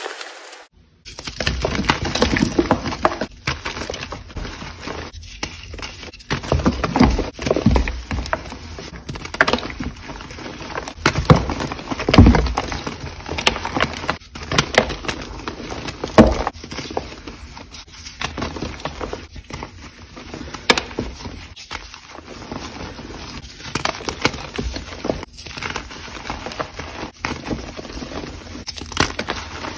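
Reformed gym chalk bars being crushed and crumbled by hand: an irregular run of dry crunches and crumbling, with sharper snaps as pieces break. The crunching starts after a brief silence about a second in.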